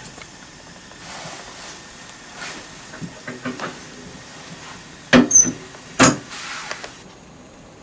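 Wood fire in a stove's firebox being stirred with a hooked metal poker: logs scraping and shifting, with small clicks, then two loud sharp knocks close together near the end.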